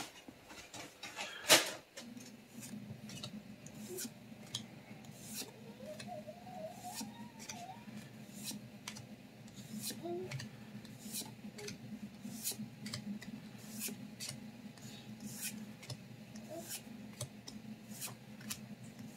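Pokémon trading cards being handled and slid one behind another, a string of light irregular snaps and rubs of card on card, with a sharper tap about a second and a half in.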